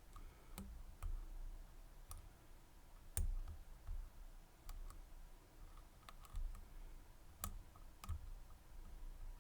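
Small metallic clicks, irregular and faint, from a dimple lock cylinder being picked: the pick and tension wrench working the pins, with spool pins giving way.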